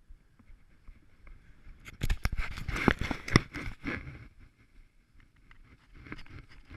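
Skis scraping and chattering over firm snow, loudest for about two seconds in the middle as a dense rasp full of sharp clicks, with faint ski hiss and ticks before and after.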